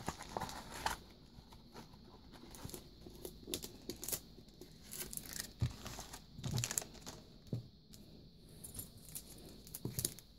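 Plastic sticker packets being handled: scattered crinkles and clicks of the clear plastic sleeves, with a few soft knocks as they are moved and set down.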